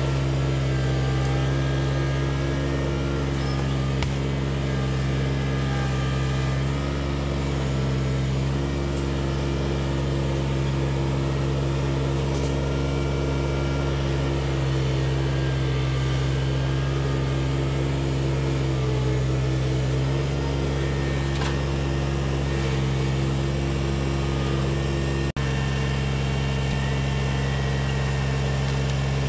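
Compact tractor engine running steadily with an even, unchanging pitch. There is a brief click about 25 seconds in.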